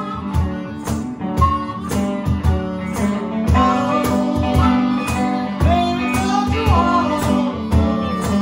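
Live blues band: a semi-hollow electric guitar, a harmonica played cupped into a hand-held microphone, and a cajón keeping a steady beat, with a man singing.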